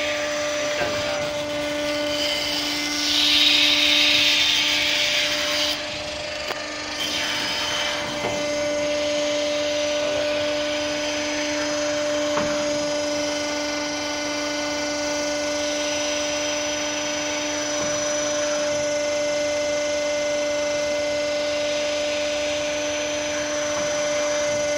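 Hydraulic deck winch running: a steady machine hum with a hiss that swells and eases, loudest a few seconds in.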